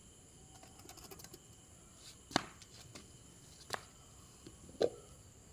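Three sharp clinks of utensils against dishes, a second or so apart, the last ringing briefly, with a few lighter ticks before them.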